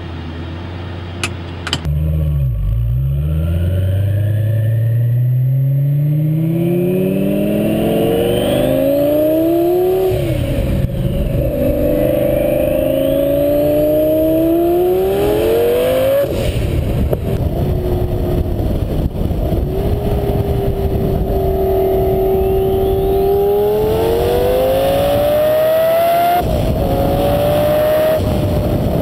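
Underground Racing twin-turbo Lamborghini Gallardo's V10 engine. It is heard at a low steady note at first, then pulls up through the gears: the revs climb steadily, drop back at each upshift and climb again, with a steadier cruising stretch in between.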